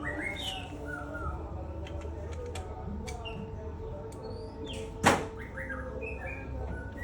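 Small birds chirping over a steady low hum, with scattered light clicks and one loud knock about five seconds in.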